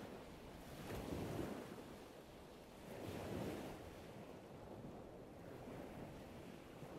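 Faint ocean surf washing against coastal rocks, swelling twice and fading, with some wind.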